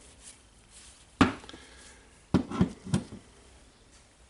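Parts of a cordless drill being handled on a workbench: one sharp knock about a second in, then three quicker knocks about a third of a second apart.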